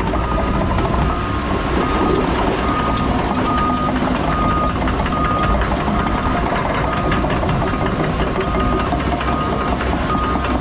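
Hyundai HX140AL excavator travelling, its travel alarm sounding a short single-tone beep repeated steadily, about three beeps every two seconds, over the engine and a clatter of sharp clicks.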